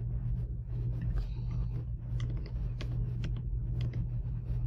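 Steady low hum with scattered light clicks and taps.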